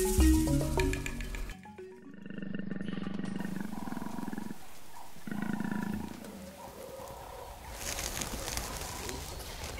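Leopard growling in two long stretches, the first about two seconds long and the second shorter, after background music cuts off about a second and a half in.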